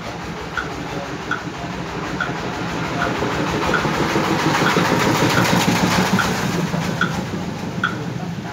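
Short, evenly spaced pitched knocks, a little more than one a second, keeping a steady beat over a rushing noise that swells through the middle and fades again.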